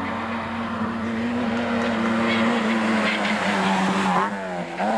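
Rally car engine running hard at high revs as the car climbs toward and passes close by, growing louder. Near the end the engine note drops briefly and then picks up again.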